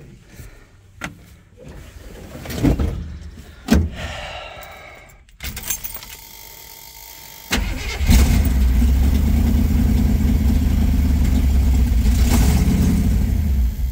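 Jeep J10 engine cranking and catching about eight seconds in after a long lay-up, then running evenly for about five seconds before dying just before the end: it is running only on gas poured into the carburettor and is starved of fuel. Knocks and rustling come before it.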